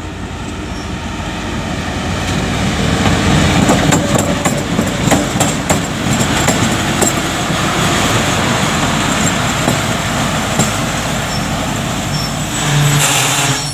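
Pakistan Railways GMU-15 diesel locomotive and three passenger coaches rolling past close by as the train pulls into the station. The engine is running and the wheels clack over the rail joints; the sound swells over the first few seconds.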